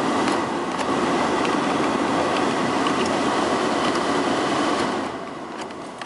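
Car heater and air-conditioning blower fan blowing hard, a steady rush of air that eases off about five seconds in as the fan speed is turned down.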